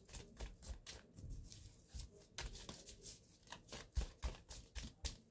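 Faint, irregular small clicks and light taps, several a second, with a sharper click about four seconds in.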